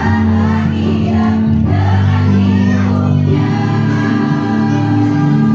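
Women's choir singing together over held notes of instrumental accompaniment.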